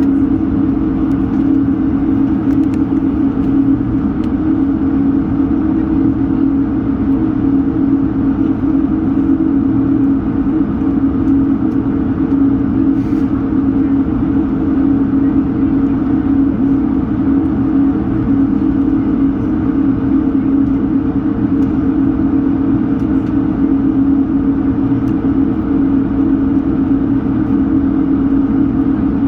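Airbus A220 cabin noise: the Pratt & Whitney PW1500G geared turbofan engines and airflow make a steady hum with a strong low drone, holding constant in pitch and level.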